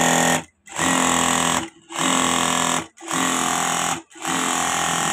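Juki DDL-8700 single-needle industrial sewing machine running with a steady hum in runs of about a second, stopping briefly four times, as its pedal sensor is pressed and released by hand. After the pedal error was cleared, the machine is running again.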